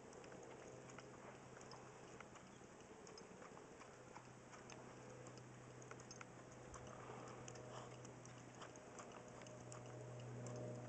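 Faint hoofbeats of a horse walking on arena sand, heard as soft scattered clicks over a steady low hum.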